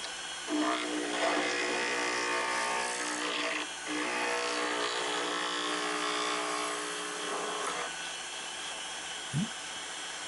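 Wood lathe running at full speed with a turning tool cutting the spinning pen blank, a pitched hum over the motor from about half a second in until nearly eight seconds, briefly broken near four seconds. A short rising chirp near the end.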